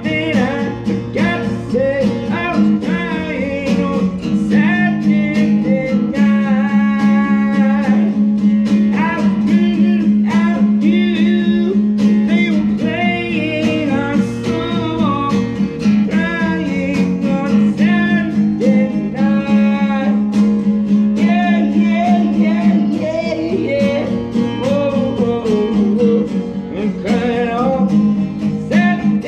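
Live acoustic performance: a strummed acoustic guitar with a man singing over it.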